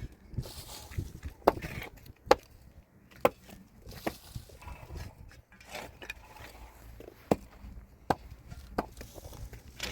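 A series of sharp knocks of something striking wood, about seven blows at uneven spacing.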